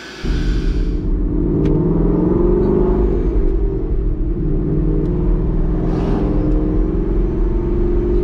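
Ford Mustang GT's 5.0-litre V8, fitted with an ESS centrifugal supercharger, heard from inside the cabin while driving: a steady low rumble whose pitch rises and falls gently.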